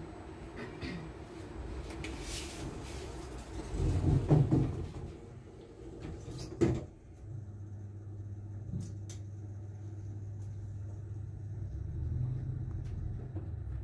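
Passenger elevator: the doors slide shut with a heavy thump about four seconds in, a sharp knock follows, and then the car runs with a steady low hum and a couple of small clicks.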